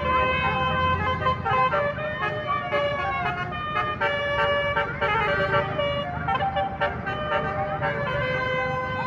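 A roof-mounted 12-trumpet telolet air horn sounding: several notes held together, shifting pitch every second or so, with wavering siren-like sweeps mixed in.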